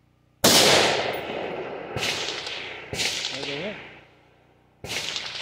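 A rifle shot from an AR-15 in 6.8 SPC about half a second in, the loudest sound, with a long echoing decay. Three quieter sharp gunshot reports follow, each with its own echo.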